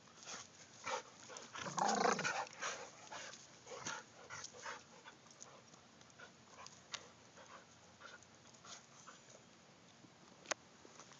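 Two dogs playing rough together, panting and making short huffing dog noises in quick bursts, the loudest and busiest about two seconds in, then sparser. A single sharp click comes near the end.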